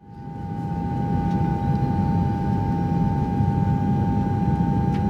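Car engine running steadily with a low rumble, a constant high-pitched whine over it. It fades in over the first second.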